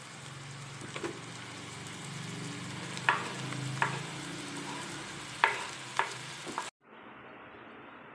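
Onion, garlic and grated zucchini frying in oil in a pan, with a utensil knocking against the pan five or six times as it is stirred. The sizzling cuts off suddenly near the end, leaving a faint steady hiss.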